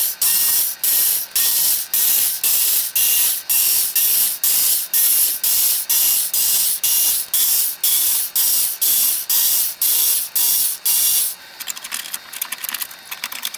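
Cordless electric screwdriver running in a rapid, even pulsing rhythm, about two and a half pulses a second, undoing the screws that hold the rear-panel sockets. It stops about eleven seconds in, leaving faint clicks of the sockets being handled.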